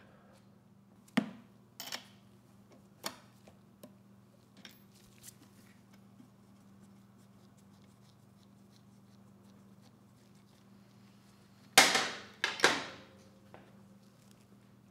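Spark plug cap and spark plug being removed from a Honda EU2000i generator's engine by hand and socket: a few light clicks and taps, then a cluster of louder metallic clanks near the end, over a faint steady hum.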